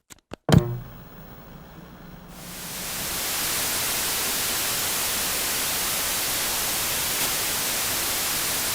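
Two sharp clicks and a heavier thump, a faint low hum, then hissing TV-style white-noise static that swells in over about a second and holds steady.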